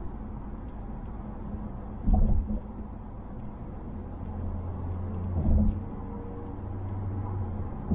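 In-cabin road and engine noise of a 2020 Mazda Atenza (Mazda6) with the 2.5-litre engine on the move: a continuous low rumble with two short low thumps, about two and five and a half seconds in. A steady low engine hum comes in about four seconds in.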